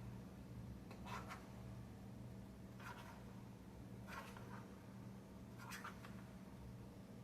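Onion rings being dredged in a dry flour coating: short, soft scratchy rustles every second or two, over a low steady hum.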